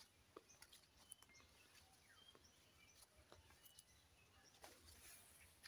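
Near silence: faint forest ambience with a few soft, short bird chirps and scattered small ticks.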